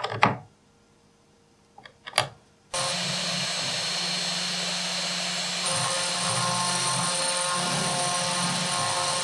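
Small CNC engraving mill's high-speed spindle running as a fine cutter mills a design into a brass tag blank: a steady whine over a hiss, starting abruptly about three seconds in, its tone shifting slightly a few seconds later.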